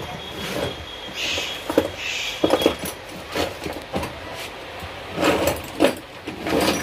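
Irregular knocks, clicks and rustling as hands handle wiring inside a voltage stabilizer's sheet-metal cabinet.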